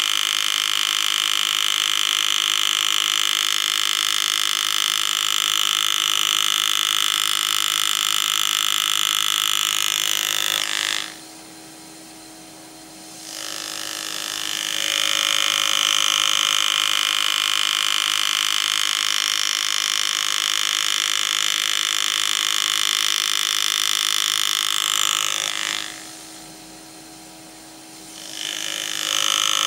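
Pneumatic hand-engraving handpiece running with a steady buzz as its graver cuts into a coin. It stops twice for about two seconds each, once about eleven seconds in and again near the end.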